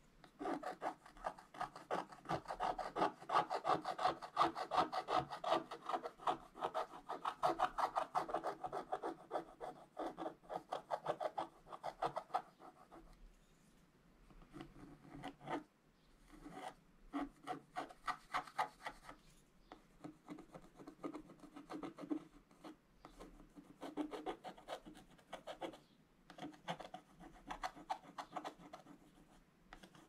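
Pointed wooden stylus scraping the black coating off scratch-art paper in rapid short back-and-forth strokes. The scraping is continuous at first, then comes in shorter bursts with brief pauses from about halfway on.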